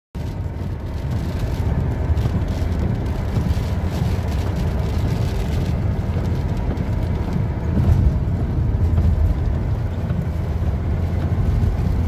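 Steady engine and road noise of a vehicle driving along a paved road, heard from inside the cab as a continuous low rumble.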